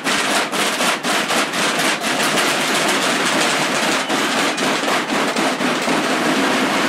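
Marching snare drums of a drum corps playing a fast cadence: a dense run of sharp, rapid drum strokes.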